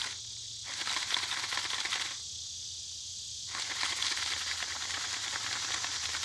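Jiffy Pop foil pan being shaken over a campfire grill grate, a dense rattle of the pan and its kernels. The rattle comes in two spells, stopping for about a second and a half in between, over a steady high hiss.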